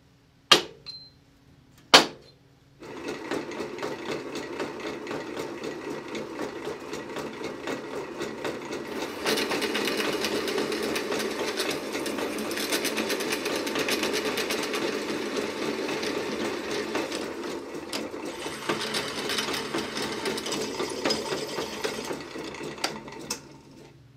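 Two sharp strikes of a wooden mallet on a transfer punch, then a drill press boring into steel bar stock. The drilling is a dense, fast chattering that gets louder about nine seconds in and stops near the end.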